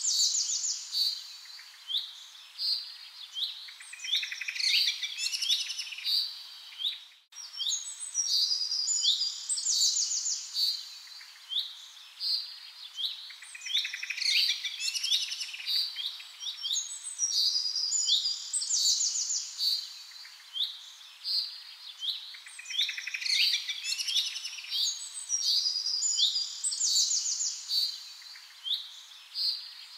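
Songbirds singing continuously: overlapping chirps, short whistles and rapid high trills, with a brief break in the sound about seven seconds in.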